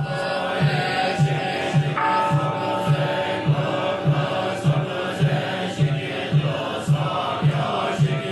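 Zen sutra chanting by a group of voices in unison, kept in time by a large mokugyo (wooden fish drum) struck with a padded mallet in an even beat of a little under two hollow knocks a second.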